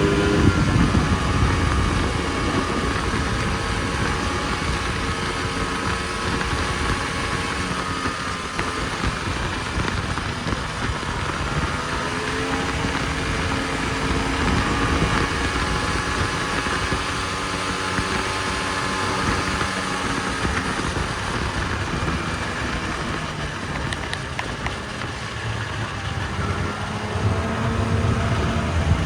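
Snowmobile engine running at a fairly steady speed under a constant rushing noise, its revs climbing again near the end.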